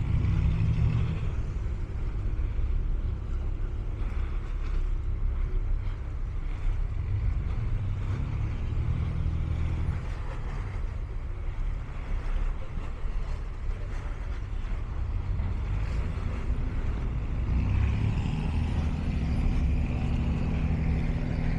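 A large engine running with a steady low hum, growing louder about 18 seconds in.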